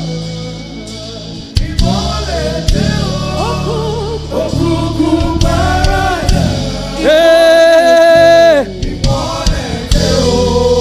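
A gospel song sung in Yoruba: voices singing a melody over steady bass and keyboard accompaniment, with one long held note about seven seconds in.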